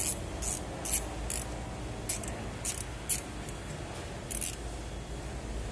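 Pneumatic ratchet wrench run in short trigger pulses on a nut of a sectional hydraulic control valve block. It gives a series of brief hissing bursts, about two a second, that stop about four and a half seconds in.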